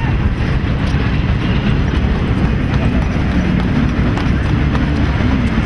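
Railway yard ambience: a steady low rumble with scattered clattering and faint, indistinct voices.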